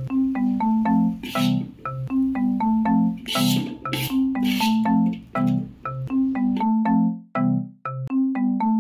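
Background music: a bright, repeating melody of short marimba-like mallet notes. A few brief scraping noises sound over it in the first half.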